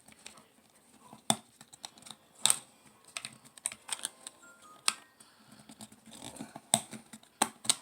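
Irregular sharp plastic clicks and rattles as the battery cover of a Prunus J-401 AM/FM/shortwave radio is handled and fitted back onto its plastic case, with several louder snaps.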